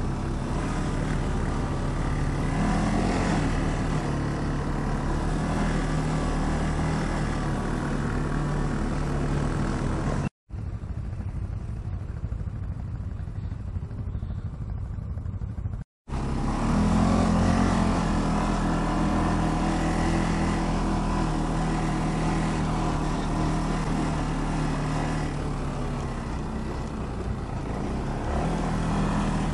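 ATV engine running steadily under way, its note rising and falling a little with the throttle. The sound cuts out briefly twice, about ten and sixteen seconds in, and is duller between the two cuts.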